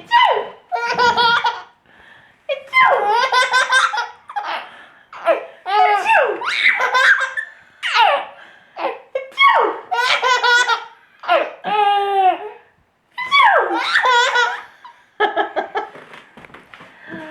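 A baby laughing in repeated belly laughs, high-pitched bursts coming every second or so, each falling in pitch, set off by someone's sneezes.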